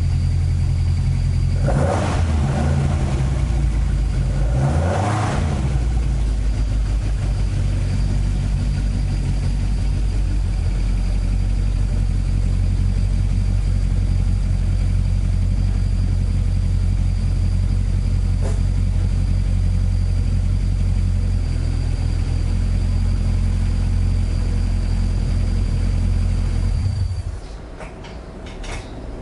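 Toyota AE86's 4A-G four-cylinder engine running: two short revs about two and five seconds in, then a steady idle, until it is switched off near the end.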